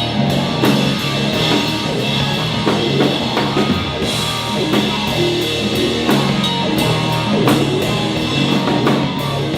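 Rock music with a drum kit keeping a steady beat under guitar and low sustained notes.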